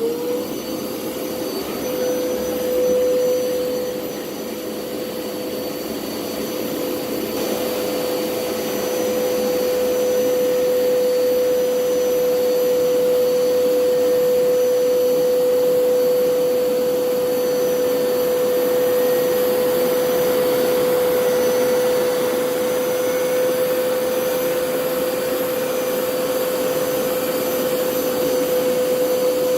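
Hoover PowerScrub Elite carpet cleaner switched on, its motor spinning up at once to a steady whine over a rushing air noise and running on.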